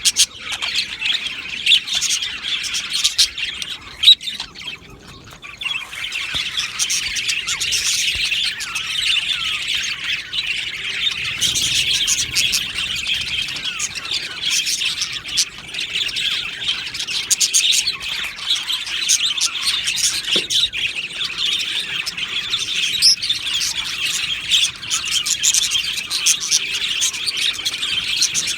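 A colony of budgerigars chattering, chirping and squawking together without a break, many birds calling over one another.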